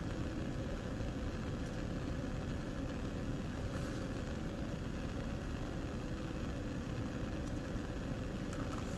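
Steady, even rushing background noise with a faint hum, unchanging throughout, as from a lit Bunsen burner and room ventilation at a lab bench; no distinct handling sounds stand out.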